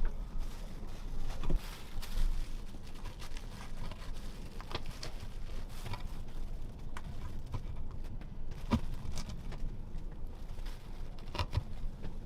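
Irregular light knocks and clicks over a steady low rumble.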